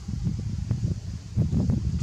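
Low, irregular wind rumble on the microphone, mixed with crackling rustles in dry leaf litter.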